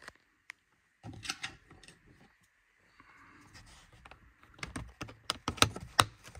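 Plastic clicking and rattling as a vanity mirror light's lens cover is handled and pressed back into its housing, with a quick run of sharp snaps near the end.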